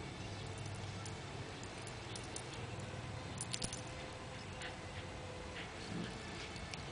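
Cairn terriers wrestling and rolling on grass: faint scattered clicks and light jingles, with a quick cluster about three and a half seconds in, over a steady low hiss.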